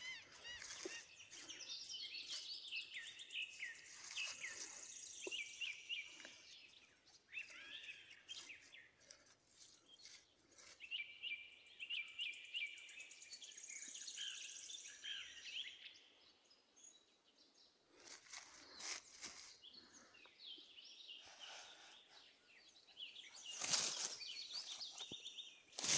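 Birds chirping, a run of many short rising and falling calls that dies away about two-thirds through. Then dry grass and leaf litter rustle, loudest near the end.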